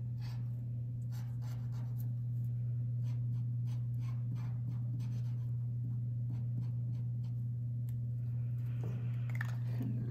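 Paint marker nib stroking and dabbing on paper: short strokes, a couple a second, fewer in the middle. A steady low hum runs underneath.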